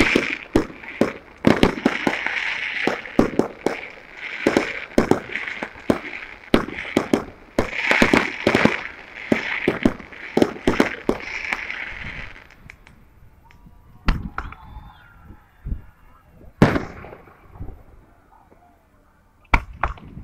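Fireworks going off in a fast barrage of bangs over a steady crackling hiss. After about twelve seconds it thins out to a few single bangs, two of them close together near the end.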